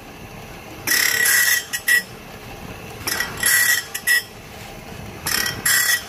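Armstrong #4 band saw sharpener's grinding wheel grinding the teeth of a 2-inch tooth-space bandsaw blade one tooth at a time. Each grind is a loud rasping burst with a high ring, followed by a short second burst, and the grinds repeat about every two seconds over a steady machine running noise.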